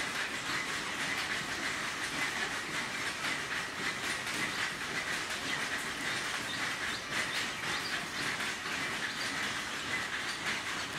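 Steady hissing outdoor background noise with fine rapid crackling and a faint high-pitched hum running through it, unchanged throughout.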